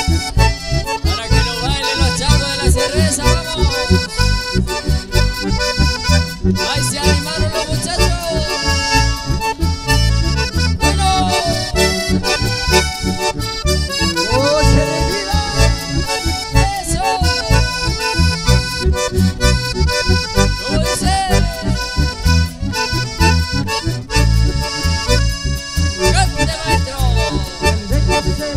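Live band playing an instrumental passage without vocals, led by button accordion and bandoneón, with acoustic guitar and a steady bass beat underneath.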